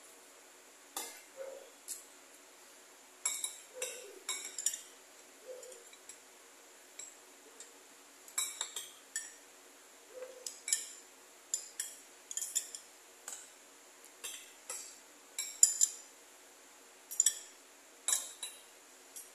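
A metal spoon clinking and scraping against a bowl as gelatin cubes in milk are scooped up, in irregular short taps, the loudest about three-quarters of the way through.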